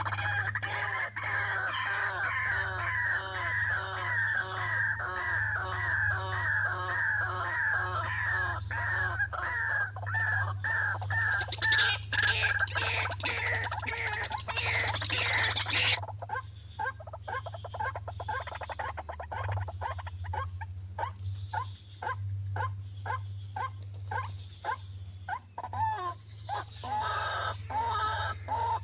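White-breasted waterhen (ruak-ruak) calling: a rhythmic run of harsh repeated notes, about two a second. About halfway through it changes abruptly to a choppier, broken series.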